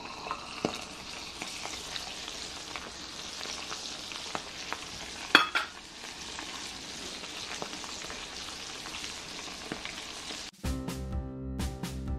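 Thin-sliced meat frying in a cast-iron skillet: a steady sizzle with scattered crackles and one sharp, louder snap about five seconds in. Near the end the sizzle cuts out and background music starts.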